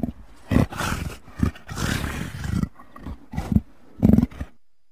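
A leopard calling: a run of short, uneven grunting calls in quick succession, about seven in four and a half seconds, breaking off near the end.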